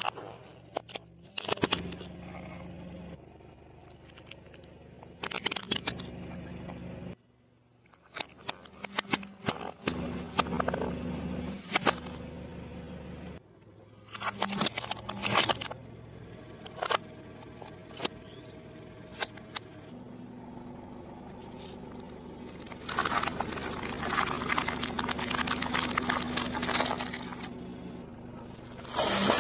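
A car tyre rolling slowly over plastic objects, among them a plastic toy foam-dart blaster, crushing them: repeated sharp cracks and crackles of breaking plastic over the low steady hum of the car's engine, in several separate crushes.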